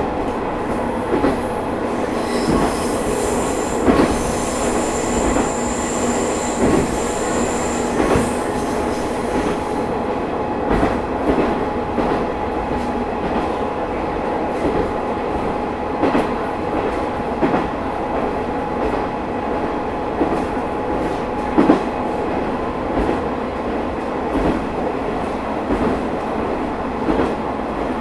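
Matsuura Railway MR-600 diesel railcar running, heard from inside the car: steady engine and running noise, with the wheels clicking over rail joints about every second and a half. A high-pitched wheel squeal sounds over the first several seconds and then stops.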